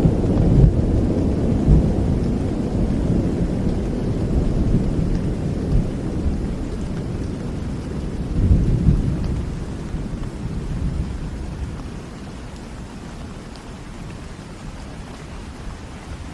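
Thunder rumbling and slowly fading away over steady rain, with a second swell of rumble about eight seconds in; by the end only the rain is left.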